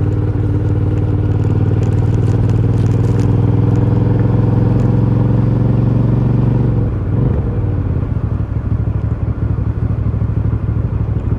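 Aprilia Shiver 750's V-twin engine through its stock exhaust, held at a steady raised speed, then about seven seconds in the revs drop back and it runs lower and more unevenly, near idle.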